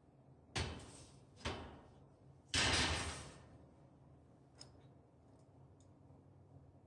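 Steel railing panel being set down onto a steel welding jig: two metal knocks, then a louder, longer clatter about two and a half seconds in, followed by a few faint ticks.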